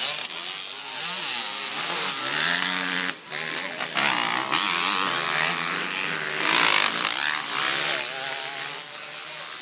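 Several motocross dirt bike engines revving hard as the bikes race past close by, their pitches rising and falling and overlapping, loudest near the end.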